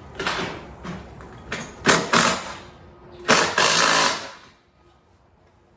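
Power driver running in three short bursts, driving screws to fasten the garage door's vertical track, the last burst the longest.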